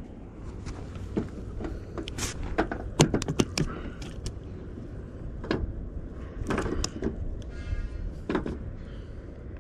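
Knocks and slaps on wooden dock boards as a just-caught small black bass flops on the deck and is handled, with a quick run of knocks about three seconds in and a short buzz near the end.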